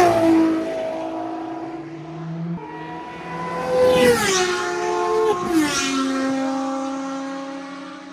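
Ferrari race cars passing on the circuit at speed, the engine note dropping in steps through gear changes. It is loudest around four seconds in, then fades away.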